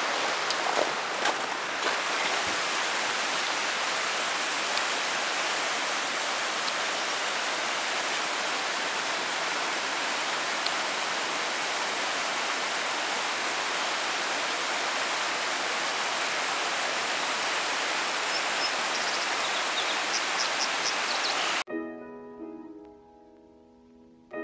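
Fast-flowing creek rushing over rocks, a steady even hiss of water. About 22 seconds in it cuts off abruptly, and soft background music with held notes takes over.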